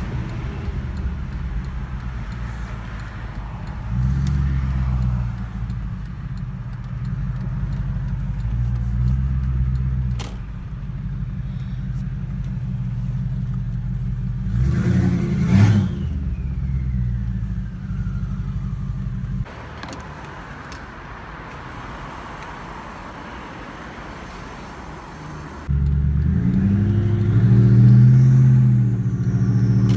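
2003 Audi RS6's stock twin-turbo 4.2-litre V8 heard from inside the cabin, running under light load, with a rev about halfway through followed by a falling whine as the turbos spool down. Near the end it pulls hard, engine pitch rising.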